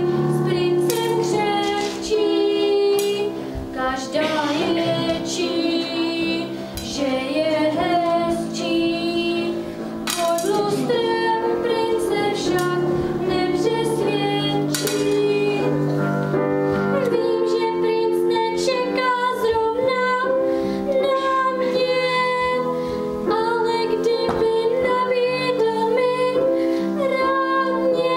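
A girl singing a slow melody with instrumental accompaniment, holding long, wavering notes.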